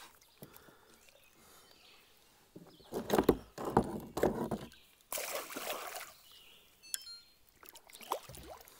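A hooked musky thrashing at the surface right beside a kayak: a cluster of heavy splashes a few seconds in, then a longer spray of water, and one more splash near the end.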